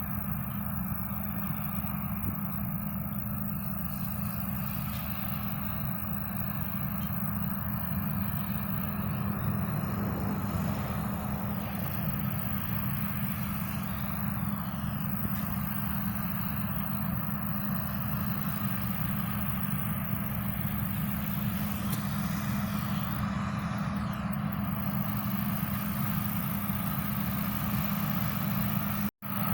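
Combine harvester running steadily while cutting rice: a constant engine and machinery drone with a strong low hum, briefly cutting out near the end.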